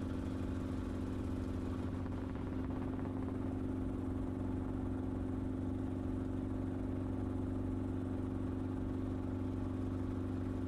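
Enstrom helicopter in cruising flight, its engine and rotors droning steadily at an unchanging pitch.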